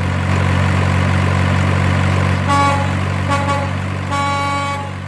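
Truck sound effect: a diesel-style engine running steadily, with three horn toots about halfway through, the third longer than the first two. The engine sound fades away toward the end.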